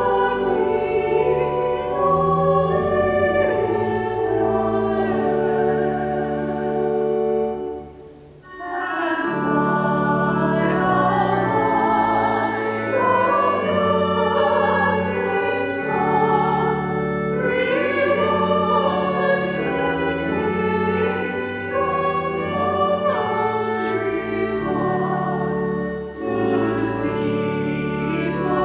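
Church choir singing a hymn in held chords, with organ accompaniment, pausing briefly for breath about eight seconds in.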